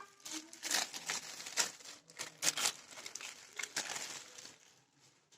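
Packaging crinkling and rustling as it is handled, in irregular crackles that stop shortly before the end.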